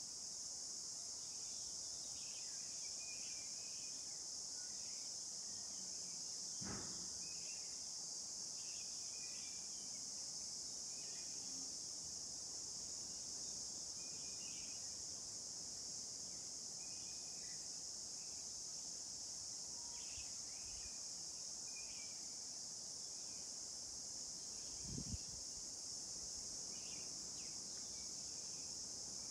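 Steady high-pitched chorus of crickets trilling without a break, with faint scattered chirps under it and two soft low thuds, one about seven seconds in and one near the end.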